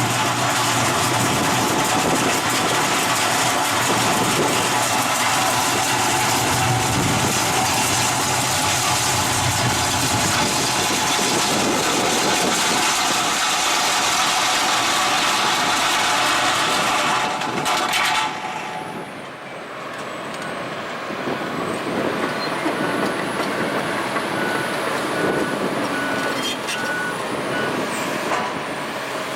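Excavator-mounted Echidna OmniCut triple-blade saw cutting stone: loud, dense mechanical noise with steady ringing tones. About two-thirds of the way through it drops suddenly and carries on at a lower level as engine and machine sound.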